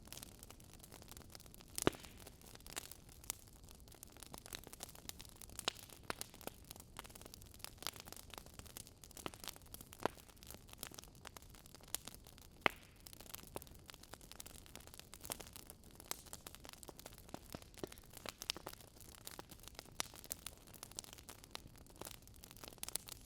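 Wood fire crackling: irregular sharp pops and snaps from burning logs over a soft steady hiss, with the strongest pops about two seconds in and again about halfway through.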